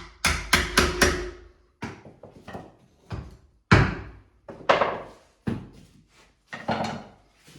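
Wood chisel being struck repeatedly, chopping out the latch recess in the edge of a timber door: a quick run of four blows, then single blows every half second to a second.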